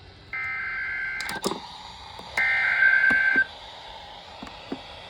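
Emergency Alert System SAME digital data header: two bursts of buzzy two-tone data signal, each about a second long and about a second apart, with a few faint clicks between them.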